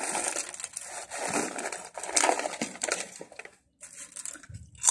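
A crinkly foil snack bag rustling and crackling as crunchy potato snacks are shaken out of it, in irregular surges that die down near the end.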